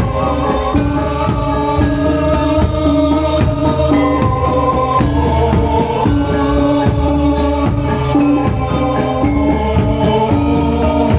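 Javanese gamelan music with singing: metallophones repeat a steady pattern of struck notes over a deep low accompaniment.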